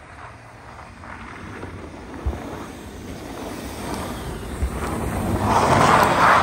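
A car drifting sideways on a snowy road approaches and passes close, the noise of its engine and tyres in the snow growing steadily louder and loudest near the end, with two short low thumps along the way.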